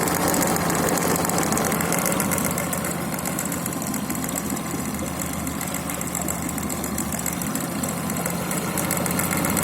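An engine idling with a knock in it: a fast, even tapping over the steady running.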